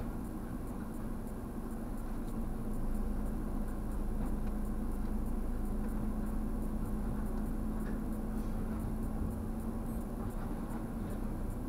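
Steady low mechanical hum with a faint steady tone, from tunnel car wash machinery and the idling car waiting at the wash entrance.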